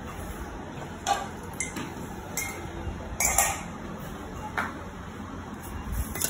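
Metal kitchenware clinking and scraping against a steel pot: about half a dozen short, sharp knocks and scrapes, the longest and loudest about three seconds in.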